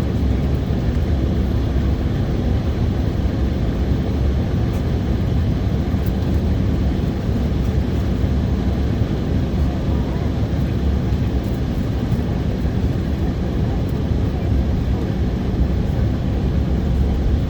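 Steady cabin noise inside an Embraer 190 airliner: an even low rumble with a hiss of air, holding level throughout.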